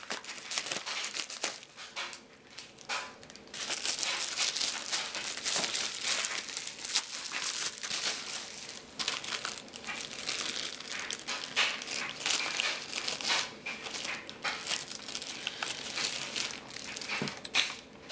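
Plastic packaging of a phone case crinkling and rustling as it is handled and unwrapped, in irregular crackly bursts that get louder a few seconds in.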